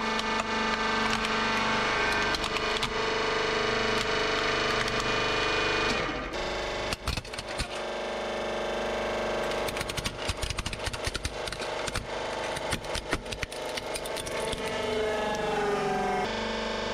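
Hydraulic press running with a steady motor hum as its ram crushes toys. From about seven seconds in, a pink plastic toy breaks apart in a dense run of cracks and snaps.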